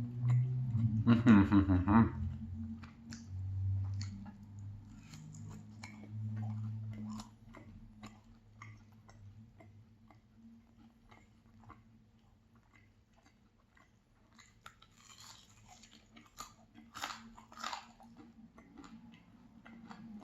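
Close-up chewing of a crusty pan-fried mozzarella cheese pancake: wet mouth clicks and crunches, louder and busier for a few seconds near the end. A short loud sound about a second in, over a steady low hum.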